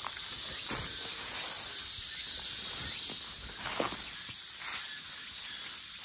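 A steady, high-pitched chorus of insects from the surrounding woods and grass, with a couple of soft rustles or footsteps.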